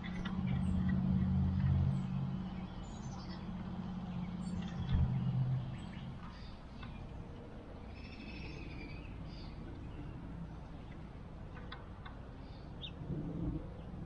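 An engine running at a steady low pitch for the first six seconds or so, then fading out, with short high bird chirps and calls scattered through.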